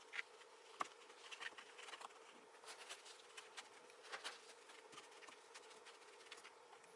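Faint, scattered rustles and light clicks of tissue paper being handled and pressed into place by hand, over a faint steady hum.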